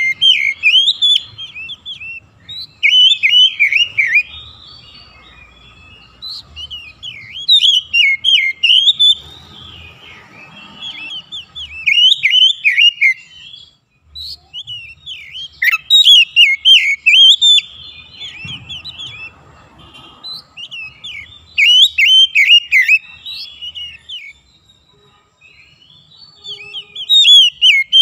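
Oriental magpie-robin (kacer) singing: phrases of rapid, varied whistled notes sweeping up and down, each a second or two long, repeated every few seconds.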